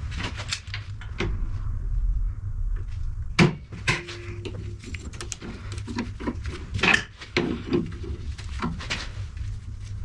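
Steel parts and clamps being handled on a steel-topped welding bench: G-clamps and a locking C-clamp set in place and screwed down to hold the work for welding, giving scattered clicks and metallic knocks, the loudest about three and a half seconds in and again near seven seconds, over a low steady hum.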